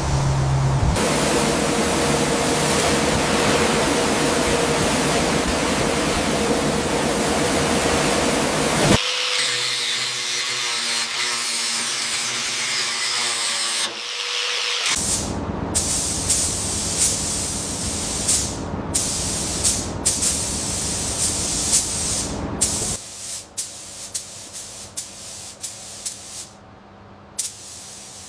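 A run of restoration work sounds with abrupt changes: a long steady spraying hiss, then a thinner hiss, then a stretch of sharp clicks and knocks from tools on metal.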